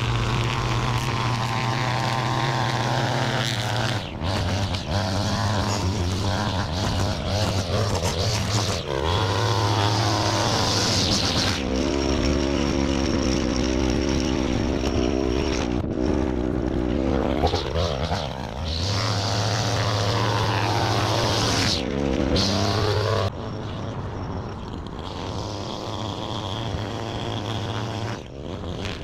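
String trimmer edging grass along a concrete curb, its small engine running, with the speed rising and falling as the throttle is worked. It becomes somewhat quieter for the last few seconds.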